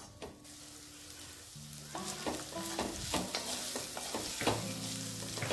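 Grated fresh turmeric sizzling as it fries in a hammered metal kadhai, with a wooden spatula stirring and scraping against the pan several times in the second half.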